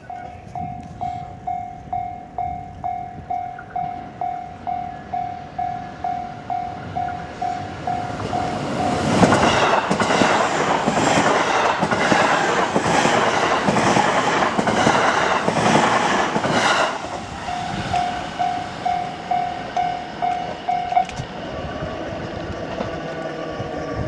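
A Japanese level-crossing warning bell rings steadily about twice a second. About nine seconds in, a JR West Hanwa Line electric train runs through the crossing for about eight seconds, its wheels clacking in a rhythm over the rail joints and covering the bell. The bell rings on after the train has passed and stops a few seconds before the end.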